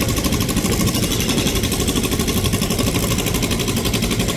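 KRL Commuter Line electric train running slowly over the points, a steady rumble of the train and its wheels on the track.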